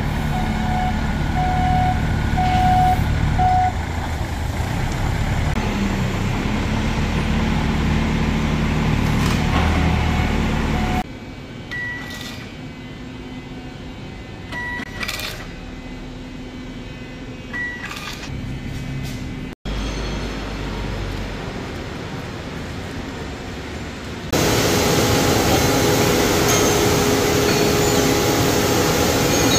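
A Clark forklift's engine running, with a repeating warning beep during the first few seconds. About eleven seconds in it gives way to a quieter room with a few short beeps and clicks around a label printer. Near the end comes the louder, steady hum of a machining hall with CNC machining centres running.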